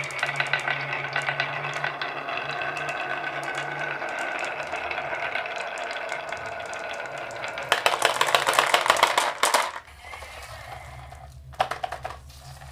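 Marbles rolling and clicking along a marble run with a continuous rattle and ringing. A louder, dense clatter comes about eight seconds in, then it quiets to a few scattered clicks.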